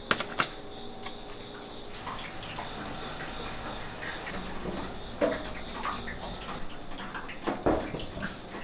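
Aluminium foil crinkling and a foil-lined tray knocking twice against a stainless steel tray just after the start. Scattered clinks and knocks of kitchen containers and utensils follow, over a steady hiss.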